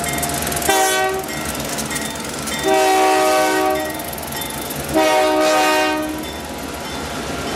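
Diesel locomotive air horn sounding three blasts, a short one about a second in and then two longer ones, over the steady running of the passing EMD GP10, GP9 and GP38 diesel locomotives.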